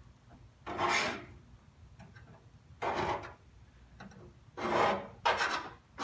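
A sharp steel scribe scratching a layout line along a steel straight edge into the dye-coated sheet-steel inner panel of a 1950 Ford F1 door, in about four short strokes with pauses between.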